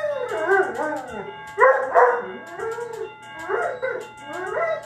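A dog howling and yowling in long wavering calls that rise and fall in pitch, over a musical doorbell chime holding steady ringing tones. The dog is howling in protest at the doorbell.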